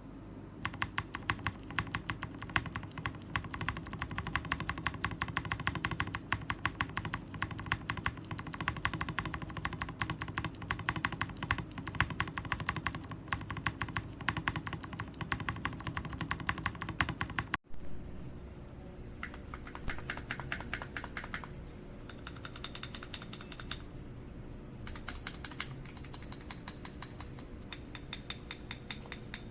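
Mechanical keyboard being typed on rapidly, a dense run of key clacks. After a brief dropout about two-thirds of the way through, the typing goes on softer and sparser over a steady low hum.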